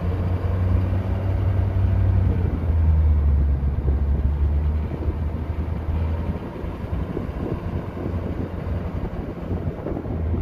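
Ford F250 Super Duty diesel pickup towing a fifth-wheel trailer, heard from the truck bed beside the hitch: steady engine and road noise with a low drone that eases about six seconds in.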